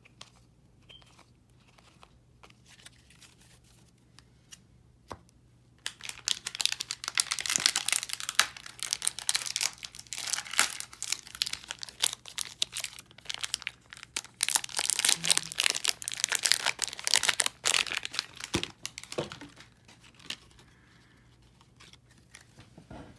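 A sports card booster pack's foil wrapper being torn open and crinkled by hand. Loud, dense crackling starts about six seconds in and goes on for about thirteen seconds before easing off, after a few faint ticks at the start.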